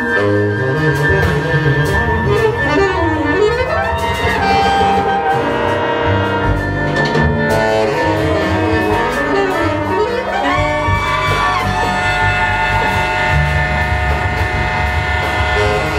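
Large jazz ensemble playing: a saxophone line sweeping up and down in pitch over held chords from the brass and reeds, with bass and drums underneath.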